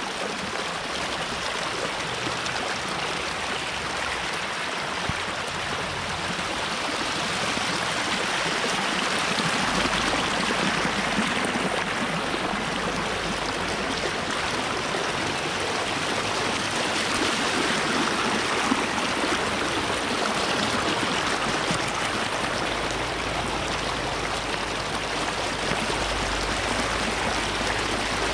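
Muddy rainwater runoff rushing down a shallow dirt drainage ditch: a steady rushing, splashing flow, a little louder from about a third of the way in.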